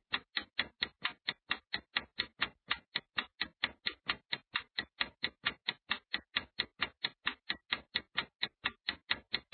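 Countdown timer sound effect: fast, even clock-like ticking, about four to five ticks a second.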